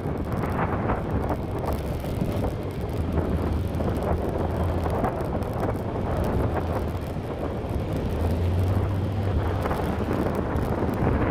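Wind buffeting the microphone of a moving motorcycle, over a low steady engine hum.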